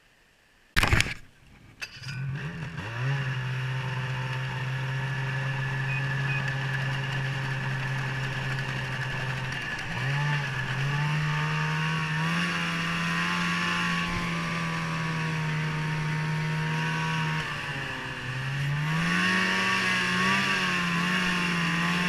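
A sharp loud crack about a second in. Then a Ski-Doo 800 E-TEC two-stroke snowmobile engine with an MBRP aftermarket exhaust comes up and runs along the trail, its pitch rising and falling with the throttle, easing off near the end and then climbing again.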